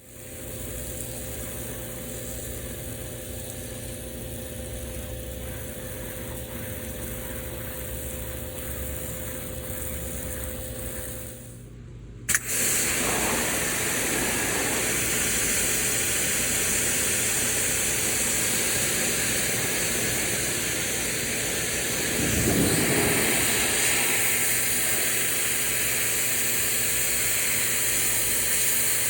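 Kranzle 1122TST electric pressure washer: a steady machine hum for about the first twelve seconds, then after a brief drop-out and a click, the loud, steady hiss of its high-pressure water jet spraying the fence, swelling briefly a little past the middle.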